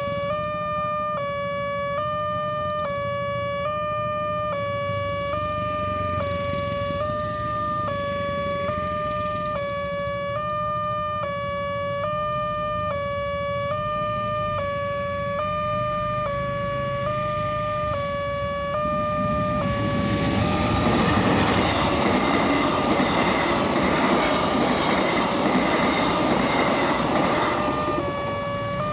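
Automatic railway level-crossing alarm sounding continuously: an electronic tone stepping back and forth between two close pitches a little more than once a second. About two-thirds of the way through, a loud rushing rumble rises over it for about eight seconds, typical of a train passing the crossing.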